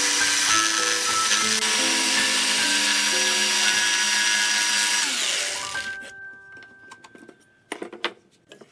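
An electric power tool, drill-like, running steadily under background music, then winding down and stopping about five seconds in. A few light clicks follow near the end.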